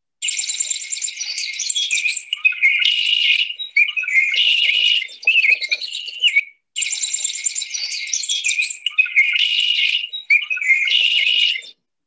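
Red-winged blackbird calls: a busy run of high chirps, trills and whistles. The same passage plays twice, with a brief break about six and a half seconds in.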